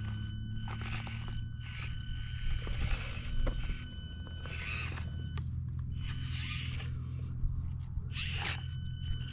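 Axial SCX24 micro RC crawlers' small electric motors whining steadily as they crawl, with the tyres and chassis scraping and knocking irregularly over rock.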